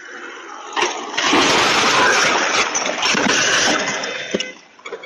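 Small plane crashing into a car on a road: a sharp impact about a second in, then a loud rushing roar of the crash and the fireball it sets off for about three seconds, dying away with a sharp knock near the end. The sound comes through a doorbell camera's microphone.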